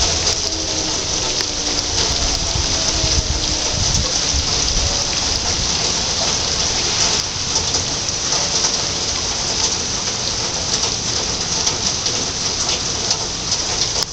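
Steady rain pouring down. Over the first few seconds a faint tone slowly falls in pitch, an outdoor warning siren winding down.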